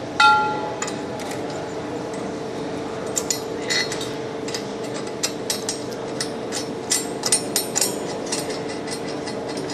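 A metal object is struck once and rings briefly, then light metallic clicks and taps follow at uneven intervals over a steady machine hum.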